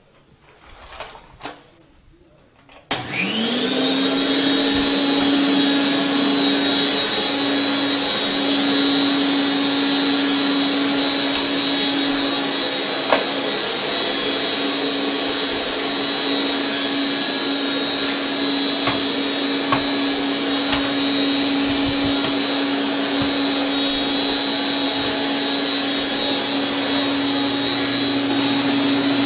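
1949 Electrolux Model XXX canister vacuum cleaner switched on about three seconds in after a few light handling clicks. Its motor spins up quickly to a steady pitch and runs evenly with a hum and a high whine, while the wand draws air along the carpet.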